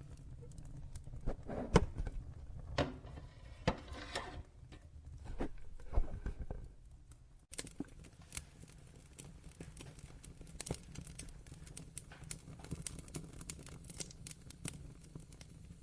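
Wood fire crackling and popping over a low rumble, with a few loud pops in the first half; about halfway through the sound changes abruptly to a denser run of small, fine crackles.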